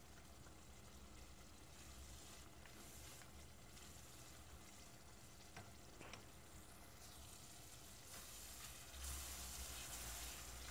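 Faint sizzling of onions and tomato frying in a little oil in a pot, with a wooden spoon stirring through it and a few light taps. The sizzle grows a little louder about nine seconds in.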